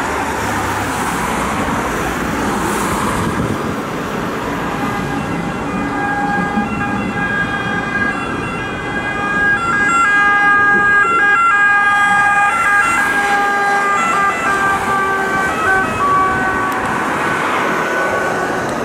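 Ambulance two-tone siren alternating between two pitches, growing louder from about five seconds in, loudest around the middle, then fading as the ambulance drives away. Passing road traffic can be heard throughout.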